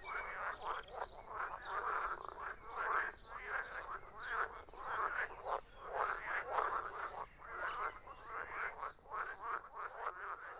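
A chorus of frogs croaking, many rasping calls overlapping in a dense, pulsing din.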